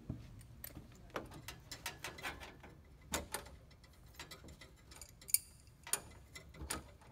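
Irregular light metal clicks and taps from a wrench and brass fittings being worked by hand on an air-conditioner's thermostatic expansion valve, with a sharper click about five seconds in.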